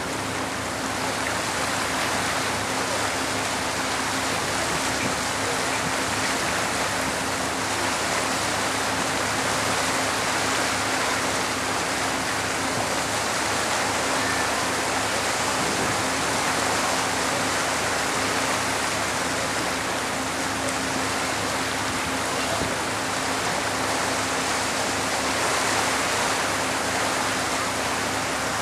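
Steady rushing of wind and water on the deck of a moving ferry, with a steady hum underneath.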